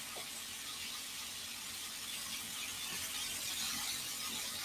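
Faint, steady sizzling hiss of chicken frying in oil in a pan.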